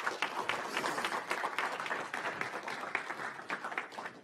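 Small audience applauding: a dense run of many hand claps that thins out near the end.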